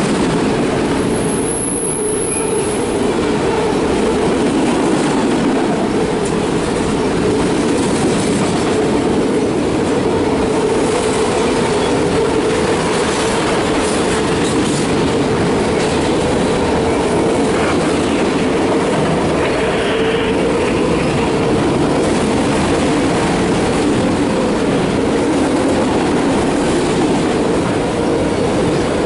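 Autorack freight cars rolling past at close range: a steady, loud rumble of steel wheels on rail with a constant pitched tone running through it. A short high-pitched squeal comes about two seconds in.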